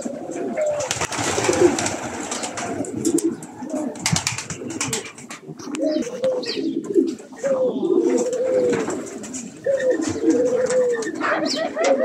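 A flock of pigeons cooing, with many short rolling coos repeating and overlapping, and a burst of noise about a second in.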